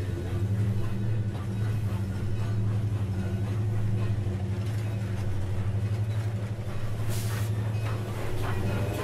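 Low, steady droning hum with a fast flutter running through it, from a live electronic or noise performance, with a brief hiss about seven seconds in.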